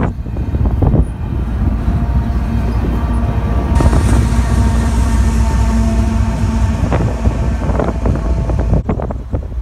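CN double-stack intermodal train rolling past, its rear-end distributed-power diesel locomotive going by: a loud steady engine rumble with held whining tones over it, a hiss that swells about four seconds in, and a few wheel clicks. The sound drops off abruptly near the end.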